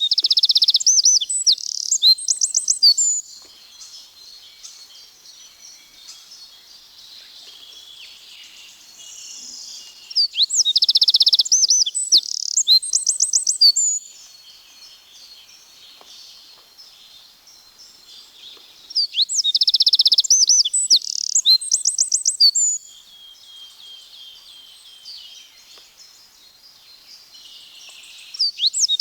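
Eurasian wren singing: loud, high-pitched songs of fast trills and rapid repeated notes, each about three to four seconds long. Three songs come with pauses of several seconds between them, and a fourth begins near the end; faint bird sounds fill the pauses.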